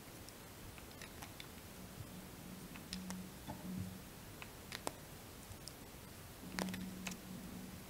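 Faint scattered clicks and ticks of hands handling fly-tying materials at a vise while winding peacock herl onto the hook, with a few soft low hums in between.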